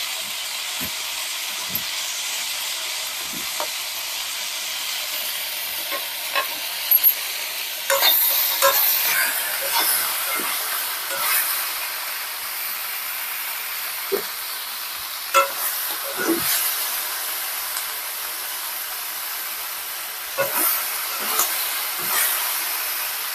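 Goat skin frying in hot oil in a pan: a steady sizzle, with a spatula knocking and scraping against the pan now and then as it is stirred.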